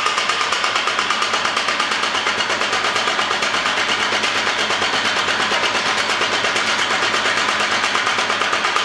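Homemade power hammer running steadily, its hammer striking in a rapid, even rhythm.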